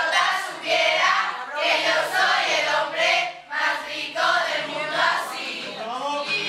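A large group of girls singing together in short, loud phrases with brief breaks between them.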